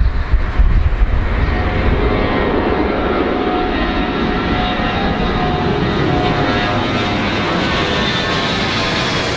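Airplane engines running: a steady rushing noise with several whining tones, some of which slide slowly lower in pitch near the end.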